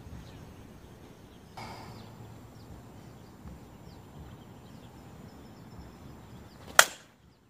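Slow-pitch softball bat hitting a pitched ball: one sharp, loud crack near the end, over a steady outdoor background with faint bird chirps.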